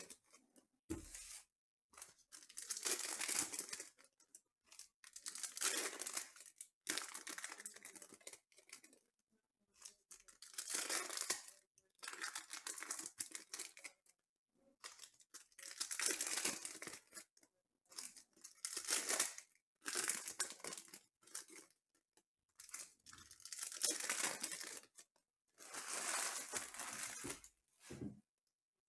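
Foil wrappers of Panini Prizm football card packs being torn open and crumpled by hand, in a string of crinkling bursts of one to two seconds each, separated by short pauses.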